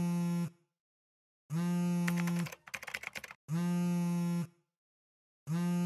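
Low, buzzy electronic beeps about a second long, repeating every two seconds. Between the second and third beep there is a rapid run of sharp clicks lasting under a second.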